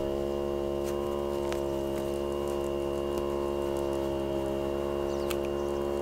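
Electric tyre-inflator pump running steadily: a constant buzzing hum with many overtones as it pumps air into a van tyre.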